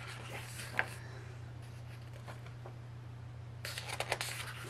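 Faint handling of a photobook's paper pages: a short tap just under a second in and a cluster of crackly rustles near the end, over a steady low electrical hum.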